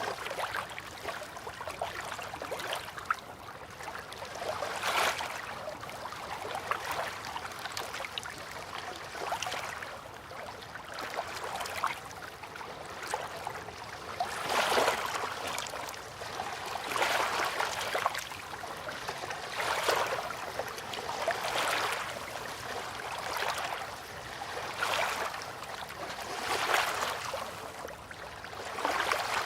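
River water lapping in small waves, with a soft swell of splashing about every two seconds.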